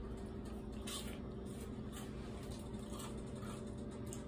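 Faint crunching chews of a freshly fried, battered pickle, a soft crunch about once a second, over a steady background hum. The crunch is harder than usual.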